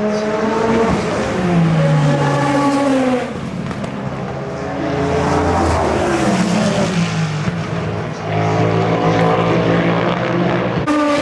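Endurance race cars passing at speed one after another, about three in turn, each engine note falling in pitch as it goes by.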